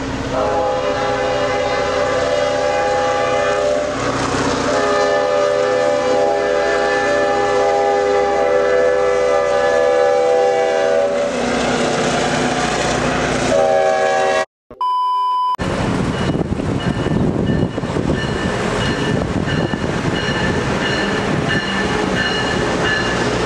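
Norfolk Southern diesel locomotive's air horn sounding a chord of several notes over the rumble of a passing freight train; the horn breaks off about four seconds in, sounds again for about six seconds, and gives a last short blast. After a brief dropout and a short steady beep, there is the rumble of an Amtrak Acela electric train moving along a station platform.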